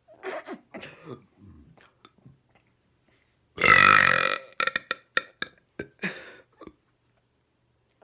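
A loud, long burp about three and a half seconds in, lasting about a second, with quieter short throat sounds before it and a quick run of short sharp sounds after it.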